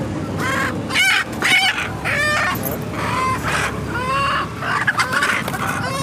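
Indian country hens and roosters squawking and clucking repeatedly as they are handled in a crate, with short calls following one another every half second or so.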